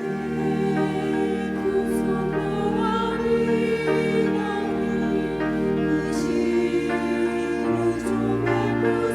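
A church choir singing a slow hymn with sustained chords and instrumental accompaniment underneath, the bass moving every second or so.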